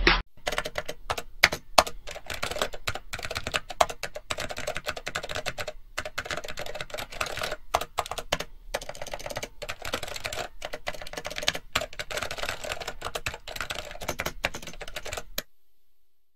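Rapid computer-keyboard typing clicks, a typing sound effect laid under the on-screen text, stopping near the end.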